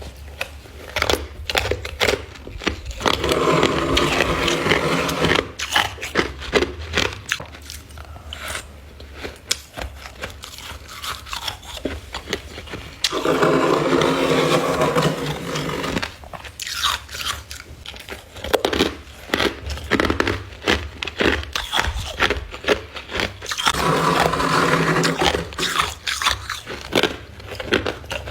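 Close-up crunching bites and chewing of freezer frost ice, with sharp crunches throughout. Three times, for a couple of seconds each, the chewing turns into a steady pitched squeak of packed frost.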